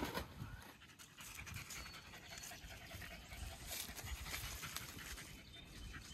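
An animal panting.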